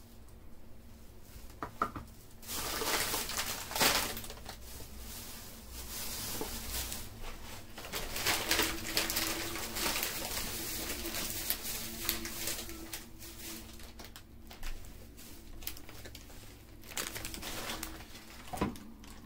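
Plastic grocery and produce bags rustling and crinkling as groceries are handled and set down on a tiled floor, with a few sharp knocks of items being put down.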